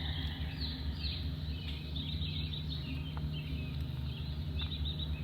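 Songbirds chirping and calling, a quick run of short high chirps and little falling calls, over a steady low rumble of outdoor background noise.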